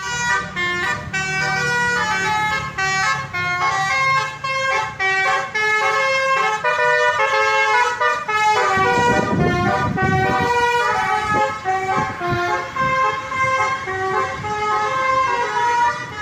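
Indonesian bus telolet horn (basuri-type multi-tone horn) playing a quick melody of stepping notes. A low rumble joins it from about nine seconds in.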